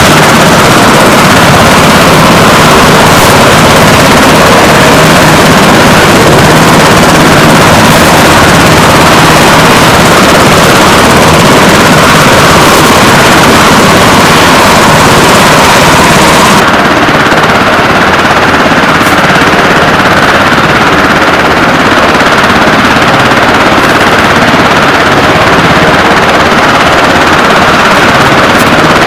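Navy Seahawk helicopter running with its rotor turning, very loud and steady, and lifting off. The highest hiss drops away about two-thirds of the way through.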